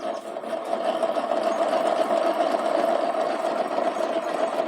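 Worn crankshaft main bearing of a Honda CG 125 Titan KS motorcycle engine, rumbling steadily with a rough, rattly grinding as the bare crankshaft is spun. The rumble marks the bearing as worn and heavy, in an engine that ran short of oil, and it is due for replacement.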